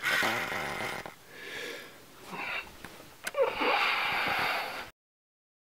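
A person's breathing close to the microphone, with a sharp click a little over three seconds in; the sound cuts off abruptly near the end.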